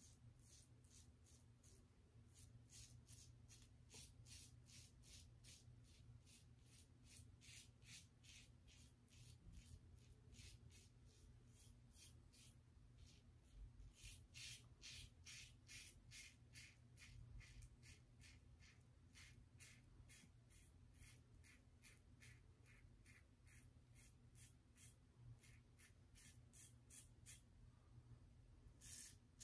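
Double-edge safety razor scraping through lathered stubble in a long run of short, faint, raspy strokes, about two to three a second, on an across-the-grain pass.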